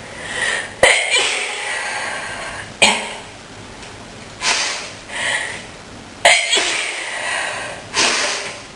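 A woman sneezing in a fit: rising, gasping inhales that build into sharp sneezes, about a second in and again about six seconds in, with another short sharp burst near three seconds and breathy exhales between them. Her nose is tickling.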